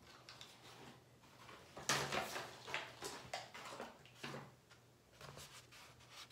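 Paper crackling and rustling in a run of short sharp bursts, loudest about two seconds in, as a folded pregnancy-test instruction leaflet is handled and opened out.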